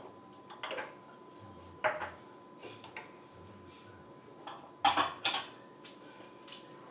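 Kitchen utensils and dishes clattering: a scattering of clinks and knocks, the loudest two close together about five seconds in.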